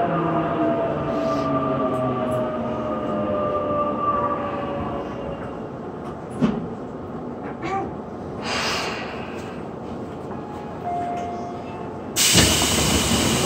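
Tobu 9050 series train's VVVF inverter whine falling in pitch as the train brakes to a stop, over running and wheel noise. A quieter stretch with a few light clunks follows, and about twelve seconds in a sudden loud rush of noise starts as the doors open.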